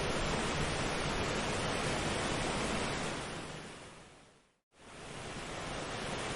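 Steady rushing, surf-like noise with no distinct events. It fades out to silence about four and a half seconds in, then quickly fades back in.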